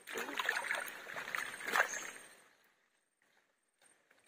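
Hands digging in wet mangrove mud and shallow water, with squelching and sloshing for about two seconds before the sound cuts out abruptly.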